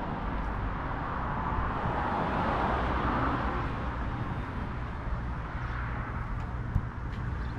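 Steady outdoor background noise of motor vehicles: a continuous low rumble under a broad hiss, with a few faint clicks near the end.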